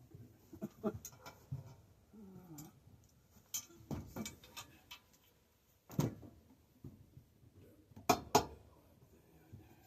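Metal tools clinking and knocking on an old bicycle's rusted parts, a scatter of sharp clanks with two loud ones close together near the end, as a seized part is worked at without coming loose.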